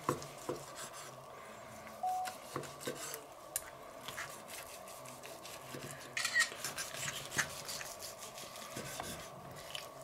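Carving knife sawing through roast goose and scraping on a wooden cutting board, with scattered clicks of the knife and fork, busiest from about six seconds in. A faint steady hum lies underneath.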